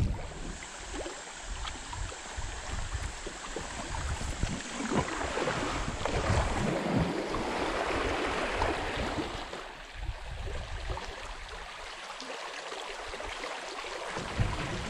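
Creek water rushing and splashing around a kayak being paddled down a shallow riffle. Irregular low bumps run under the water noise.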